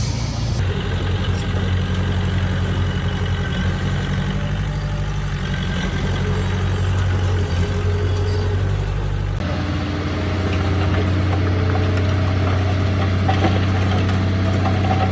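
Heavy diesel engine of earthmoving machinery running steadily with a low, even drone. The sound changes abruptly about nine seconds in, as if to another machine or another shot.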